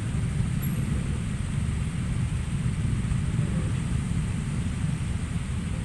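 Steady low rumble of road traffic engines, with no horns sounding.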